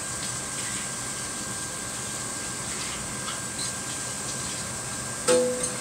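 Batter-coated donut holes deep-frying in a pan of hot oil: a steady sizzling hiss with faint crackles. About five seconds in, a sudden clank with a short ring, a utensil knocking against cookware.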